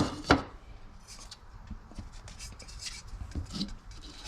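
Small plastic tabs on a speaker mounting adapter snapped off with a cutting tool: two sharp snaps at the start, then quieter rubbing and light clicks of the part being handled.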